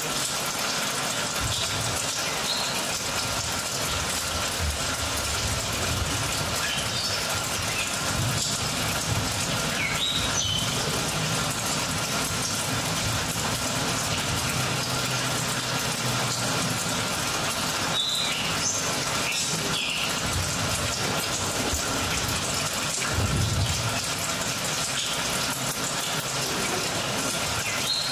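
Ambient soundscape accompanying a stage dance: a steady rushing, water-like noise with uneven low rumbles underneath and a few short high chirps scattered through it.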